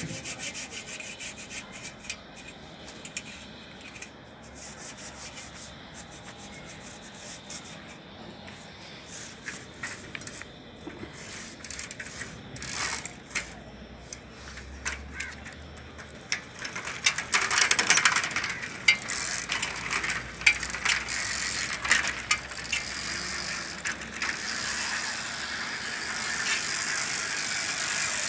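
Bicycle freewheel ratchet clicking rapidly as the wheel or cranks turn, with metal rattling of the cycle's parts that grows louder in the second half.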